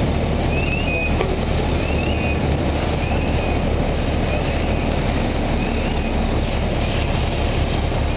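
Fire engine's diesel engine running steadily, a loud low rumble, with faint short rising chirps recurring every second or so.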